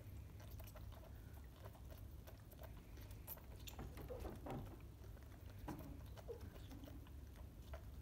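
Faint, quick clicking and smacking of two koala joeys suckling milk from bottle teats, over a low steady hum.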